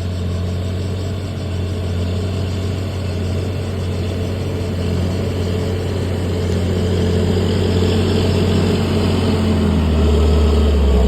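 John Deere 8420 tractor's six-cylinder diesel engine running steadily under load while pulling a three-furrow plough. It grows gradually louder and deepens about ten seconds in.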